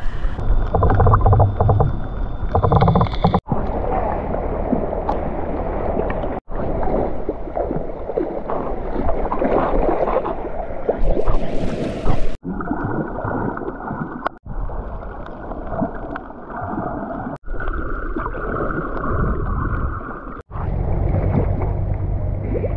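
Muffled rushing and bubbling water heard through an underwater camera as a swimmer moves through the sea. The sound cuts off abruptly several times.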